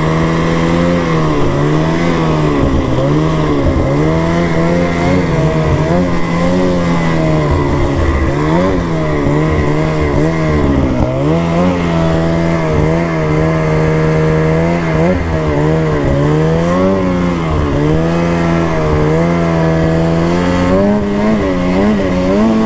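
2024 Ski-Doo Freeride snowmobile's two-stroke engine running under way. Its pitch rises and falls again and again as the throttle is opened and eased, holding steady for a few seconds about halfway through.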